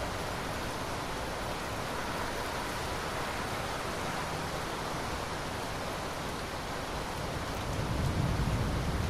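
Steady rain falling, an even hiss; a low rumble swells briefly near the end.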